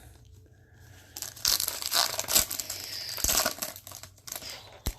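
Crinkling and tearing of a foil trading-card pack wrapper as a pack is opened, in irregular crackling bursts, with a sharp tap near the end.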